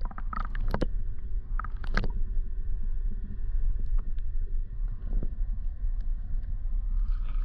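Steady low rumble of water and boat noise, broken by several sharp knocks and clicks in the first two seconds, the loudest about two seconds in, then fainter scattered ticks.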